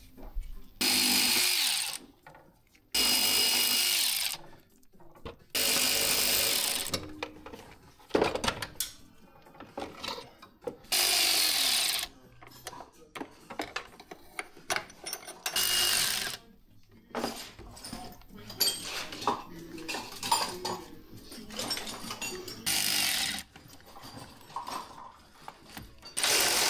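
Cordless power tool run in about seven short bursts of a second or so, undoing fasteners while the battery and intake parts come out of the engine bay. Between the bursts come lighter metallic clinks and rattles of hand tools.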